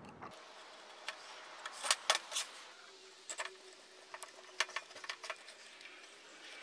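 Light, irregular metallic clicks and rattles of a steel nut being handled and spun onto a length of all thread (threaded rod), in two loose clusters.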